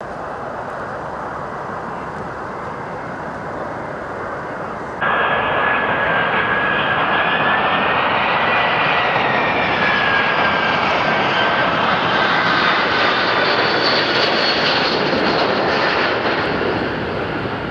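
Turbofan engines of an Ilyushin Il-96 jetliner on landing approach, a steady jet engine noise. About five seconds in it suddenly gets louder, carrying a high whine that rises slightly and then slowly falls, and it fades near the end.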